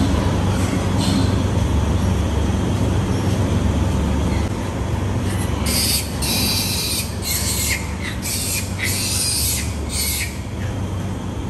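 Piglets squealing in several short, harsh bursts about halfway through, over a steady low rumble.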